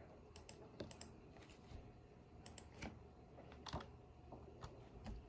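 Faint typing on a laptop keyboard: scattered, irregular keystrokes with short gaps between them.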